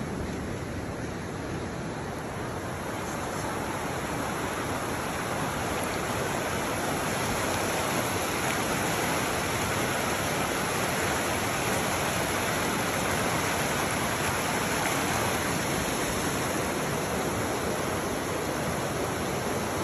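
Glacier-fed mountain river rushing steadily over rocks and through shallow rapids.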